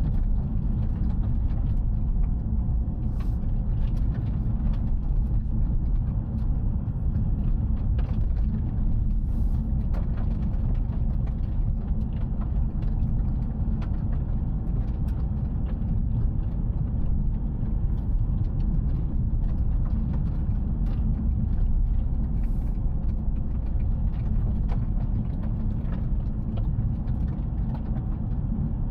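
Toyota GR Yaris heard from inside the cabin while driving at a steady speed: an even low rumble of engine and tyres on the road, with faint scattered ticks.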